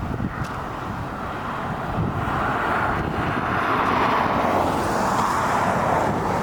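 Road and wind noise inside a moving car, a steady rushing that grows louder about two seconds in.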